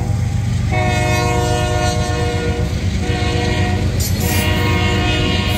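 Freight train's locomotive air horn blowing a chord in separate blasts: a long one starting just under a second in, a shorter one, and another long one beginning near the end. Under it runs the steady low rumble of loaded flatcars rolling past on the rails.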